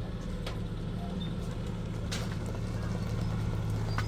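An engine or motor running steadily with a low hum, with a few sharp clicks or knocks over it.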